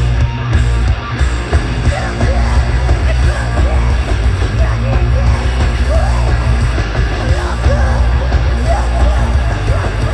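A hardcore/metal band playing live through a festival PA: loud, dense music with a heavy low end and yelled vocals on top.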